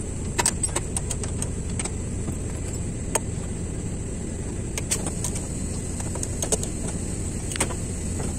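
Steady low rumble of machinery running, with scattered light clicks and taps.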